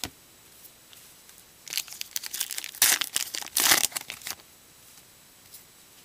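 A Topps Gypsy Queen baseball card pack's wrapper being torn open and crinkled, a burst of crackling rustle lasting about two and a half seconds in the middle.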